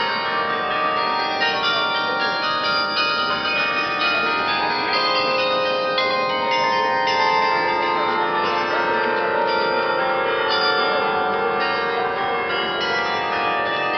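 Church bells ringing, many bells struck one after another in quick succession so that their tones overlap into one continuous peal.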